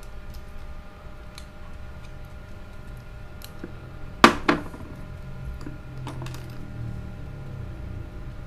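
Small metal parts of a spinning reel's spool clicking and clinking as the drag washers are prised out with a small pointed tool: light clicks, a sharp clink about four seconds in followed by a second, then more clicks about six seconds in, over a faint steady hum.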